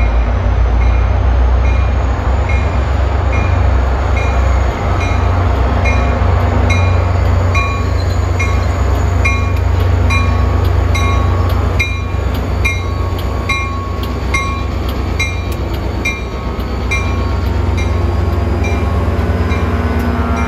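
Old EMD diesel locomotive's engine running with a heavy low rumble while its bell rings steadily, a little over twice a second.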